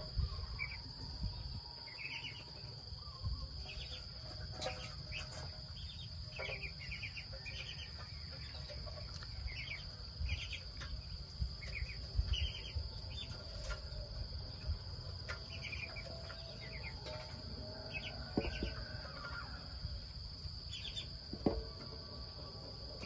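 Steady high-pitched insect drone, with short bird chirps repeating every second or so, a few faint clicks and a low rumble underneath.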